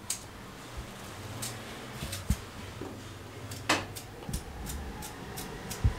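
Scattered light clicks and taps from a small knife cutting and seeding a tomato held in the hand, with one sharper click a little over halfway through, over a low steady room hum.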